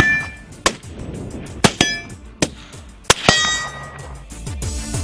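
Bullets striking steel plate targets: about seven sharp metallic clangs in the first three and a half seconds, several of them ringing on briefly with a high tone.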